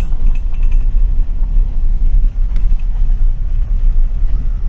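A car driving on a dirt road, heard from inside: a steady, loud low rumble of engine and tyres.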